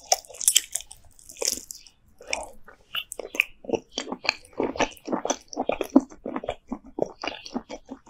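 Close-miked ASMR eating sounds: a woman bites into cooked giant land snail meat, then chews it in a steady run of short mouth sounds, about three chews a second.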